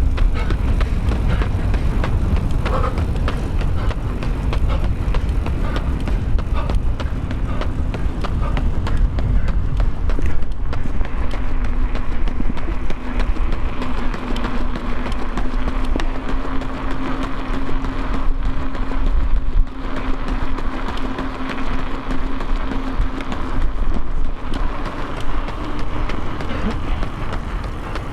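Steady low rumble of a road vehicle running, with a steady hum coming in for a while through the middle.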